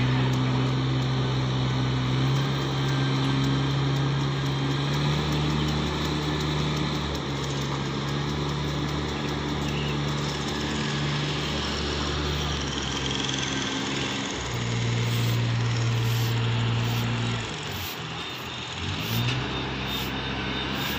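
Small engine of a rice transplanter running with a steady drone. Its pitch shifts a few times, and about three-quarters of the way through it drops and glides back up.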